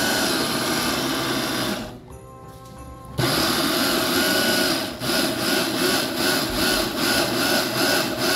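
Electric food chopper's motor running as it blends crepe batter. It runs about two seconds, stops briefly, then starts again and soon rises and falls about twice a second.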